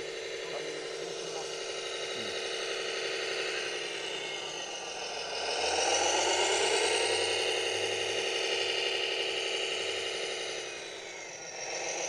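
Whine from a radio-controlled construction model's electric drive motor and gearing as the model drives over sand. The whine is steady, with a pitch that dips and climbs back up about five seconds in and again near the end.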